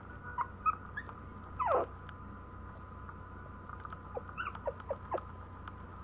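Newborn Maltese puppies squeaking and whimpering in short, high cries, with one longer falling whine about two seconds in and a quick run of squeaks near the end.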